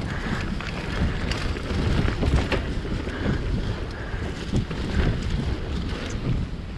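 Mountain bike riding fast down a dirt trail: wind buffeting the microphone and tyres rumbling over the ground, with scattered clicks and knocks as the bike rattles over bumps.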